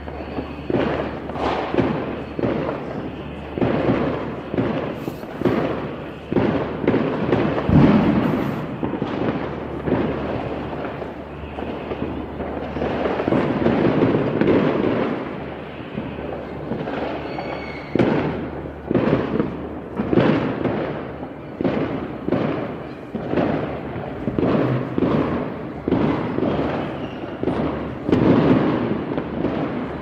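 Many fireworks bursting across a city at once, heard from a distance: a continuous run of overlapping booms and crackling pops with no break.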